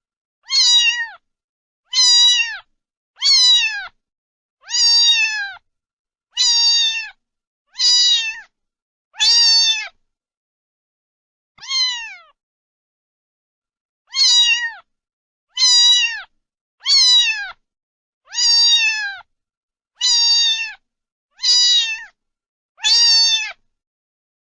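A domestic cat meowing again and again: about fifteen short meows roughly a second and a half apart, each dropping in pitch at its end, with a longer pause around the middle.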